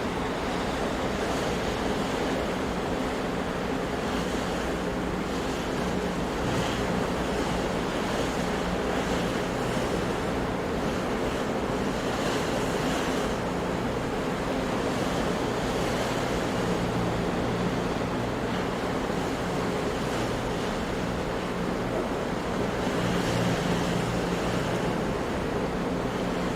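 Ocean surf washing continuously, with the hiss of breaking waves swelling every few seconds.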